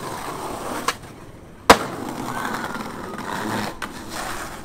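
Skateboard ollie down a stair set: wheels rolling over pavement, a pop of the tail about a second in, a short silence in the air, then a loud slam as the board lands, and the wheels rolling on over the tiles.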